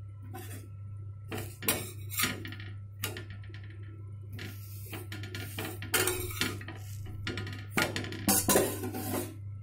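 A stainless-steel utensil clinking and scraping on a tawa as a chapati is pressed down while it cooks. The clatter comes in irregular clusters and is loudest near the end, over a steady low hum.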